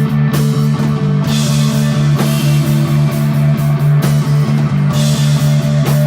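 Live rock band playing loud and instrumental, with electric guitar and bass holding a droning low note under a quick, even pulse. Cymbal crashes swell about a second in and again near five seconds.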